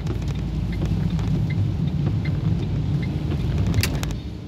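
Car interior noise while driving on a wet road: a steady low rumble of engine and tyres, with faint scattered ticks and a sharp click near the end.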